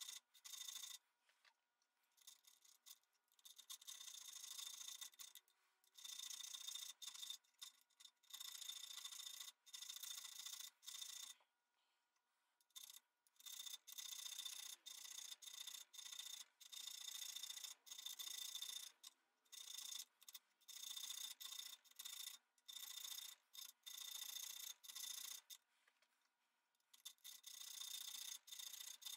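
Faint rasping of a narrow hand file cutting the thread groove into the small steel lead screw of an auger bit, in short repeated strokes with a few pauses of a second or two.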